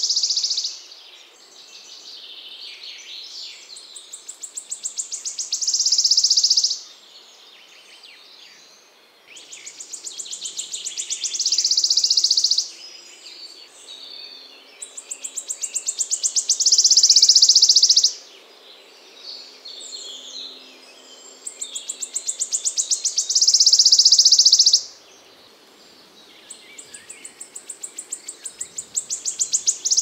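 Wood warbler singing: a song repeated about five times, each a run of ticking notes that speed up and grow louder into a loud trill lasting about three seconds, with a few seconds' pause between songs. Other birds call faintly in the pauses.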